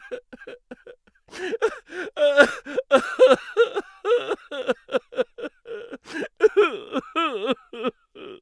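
A person crying in a comic, exaggerated way: a run of short gasping sobs, then a wavering wail that swoops up and down in pitch near the end.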